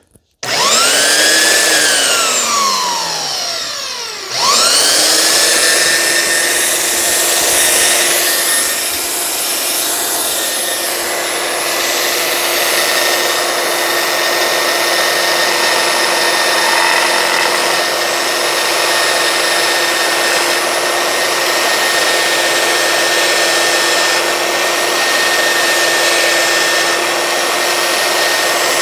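Makita 9403 4x24-inch belt sander switched on: its motor and belt whine rise, then fall away as it is let go and coasts down. About four seconds in it is started again and runs steadily at full speed, held on by its lock-on button.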